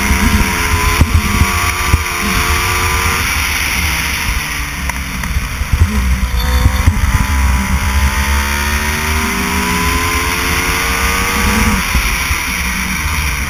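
Racing go-kart engine heard from on board. Its pitch falls from about three seconds in as the kart slows, then climbs steadily from about seven seconds as it accelerates again, over a heavy low rumble.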